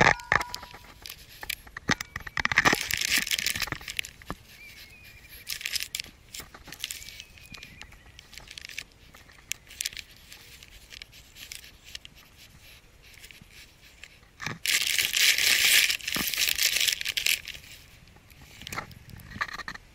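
Foil snack packet crinkling as a cat noses into it and licks food from inside. The crinkling comes in two spells, about two seconds in and again for a few seconds past the middle, with small scattered clicks in between and a sharp click at the very start.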